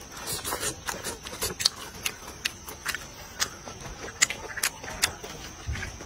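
A person chewing a mouthful of food close to the microphone: irregular wet clicks and crunches, a few each second.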